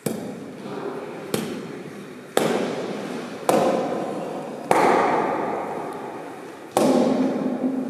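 Wooden geta clogs clacking on a stone floor in slow steps: six sharp clacks about a second apart, with a longer pause before the last, each one echoing on in the stone room.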